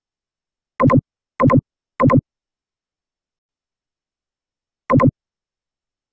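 Short electronic synth blips in otherwise dead silence: three in quick succession about 0.6 s apart, then a fourth about three seconds later.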